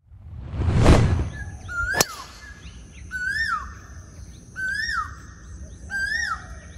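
A golf driver strikes a ball off the tee: a single sharp click about two seconds in, just after a brief rushing swell of noise. A bird calls over and over, a rising-then-falling note about every second and a half.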